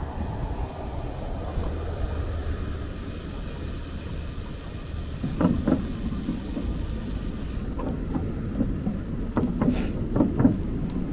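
Steady low wind rumble on the microphone of a moving bicycle, with clusters of sharp knocks and rattles about halfway through and again near the end as the bike jolts over bumps in the path.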